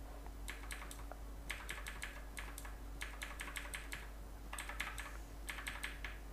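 Computer keyboard keys pressed in quick bursts of several light clicks at a time, with short pauses between the bursts.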